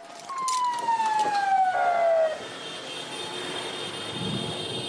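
Emergency siren: a loud tone sliding steadily down in pitch for about two seconds, then a quieter, steadier high tone.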